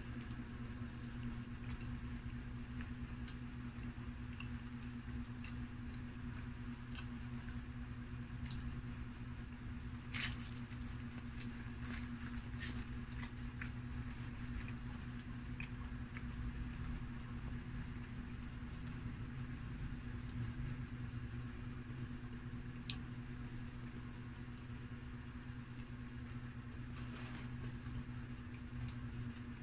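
A person chewing and eating pizza close to the microphone, with small scattered clicks and crackles from tearing pieces off the pizza on its paper liner, and a sharper click about ten seconds in. A steady low hum runs underneath.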